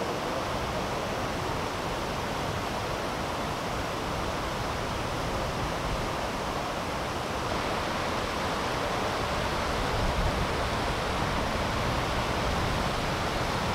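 Steady rushing of river water: an even noise that holds the same level throughout.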